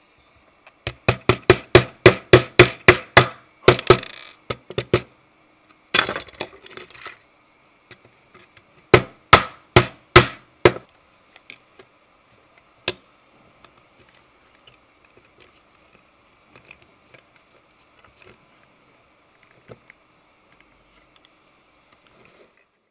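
A fast run of about a dozen sharp knocks on hard 3D-printed plastic parts, about four a second, then a shorter run of five and a single knock a little later. Faint clicks of parts being handled follow.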